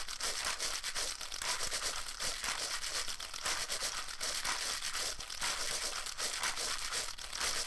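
Dense, steady crackling and rustling, made up of many small rapid clicks.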